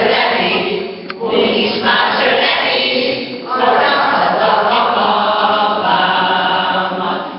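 A group of voices, the women on stage, singing a song together unaccompanied, in phrases with short breaks between them.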